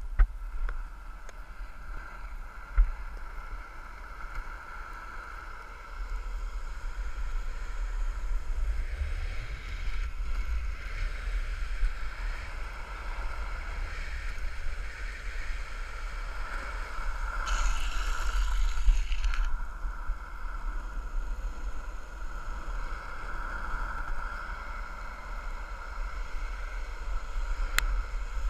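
Abec 11 urethane longboard wheels rolling fast on asphalt, a steady hiss and hum, with wind rumbling on the board-mounted camera's microphone. It gets louder about six seconds in as speed builds. About eighteen seconds in comes a two-second brighter hiss, and near the end one sharp click.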